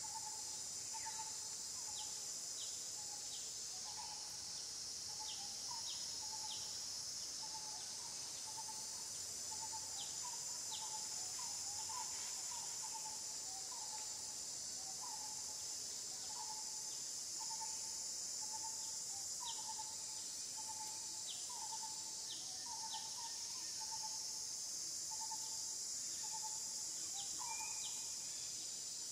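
Steady high-pitched drone of an insect chorus, with a bird calling short notes over and over, about one or two a second.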